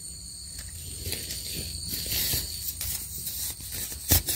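Hand scraping and digging in loose, sandy soil to pull up a termite mushroom, a soft crumbly scratching with scattered small clicks. Two sharp knocks near the end are the loudest sounds.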